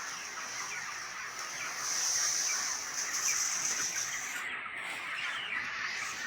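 A flock of broiler chickens peeping and chirping continuously, many birds calling over one another. A steady high-pitched hiss runs under it and swells in the middle.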